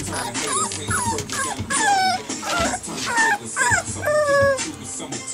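Six-week-old American Bully puppies whining and yipping in a string of short, high cries that bend in pitch, with one longer whine about four seconds in.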